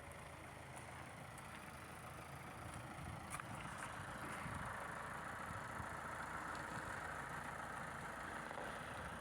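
Forklift engine running, faint at first and growing louder about three and a half seconds in, then holding steady.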